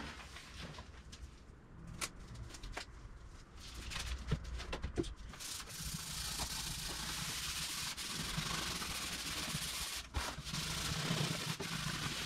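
Scotch-Brite pad scouring a bare aluminum aircraft skin wet with PreKote, a steady scrubbing hiss that starts about five seconds in after a few scattered clicks and taps. The scuffing takes a thin layer of aluminum off the surface and dulls it, giving it tooth for the primer.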